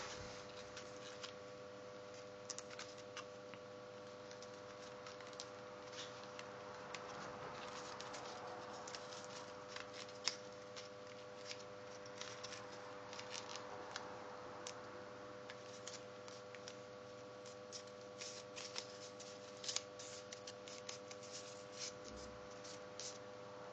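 Faint crinkling of folded paper being pinched and shaped by fingers: many small, irregular crackles and clicks, over a steady electrical hum.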